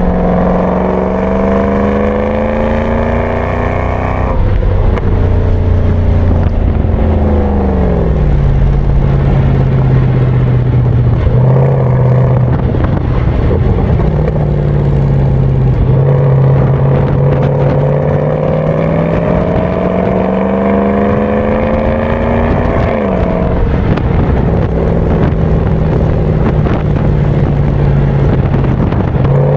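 Mercedes-AMG S63's V8 engine under way: its pitch climbs under acceleration for about four seconds, then drops sharply at a shift or lift-off and settles into a steady drone. Later it climbs gently again and drops once more before settling, over a constant low road rumble.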